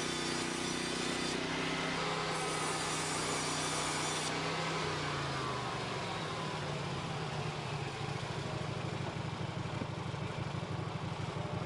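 Portable bandsaw sawmill's engine running steadily, its pitch dropping about four seconds in as it slows, then running on at the lower speed.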